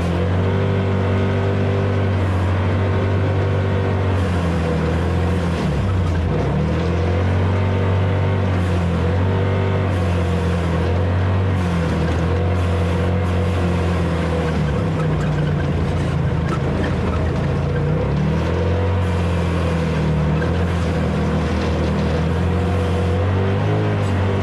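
A vehicle engine running steadily, its pitch rising and falling every few seconds as the throttle changes.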